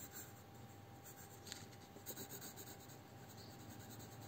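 Faint scratching of a pencil shading on paper.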